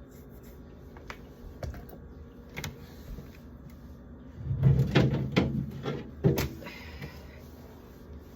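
Jars and bottles knocking and clattering as they are handled and set down while a fridge is cleared out. A few light clicks come first, then a louder run of knocks about halfway through.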